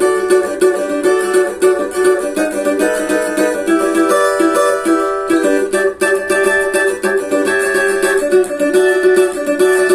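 Steel-strung cavaquinho with a central jack pickup, played through an amplifier in a continuous run of quick picked and strummed notes.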